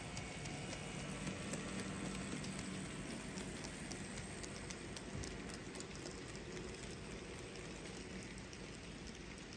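N scale model train rolling past on its track: small metal wheels clicking over the rail joints in a fine, rain-like patter. A low hum is heard in the first few seconds while the locomotives go by, then fades.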